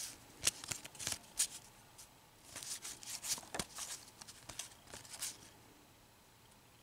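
A stack of baseball cards being flipped and slid through the hands, a run of quick papery flicks and rustles that stops about a second before the end.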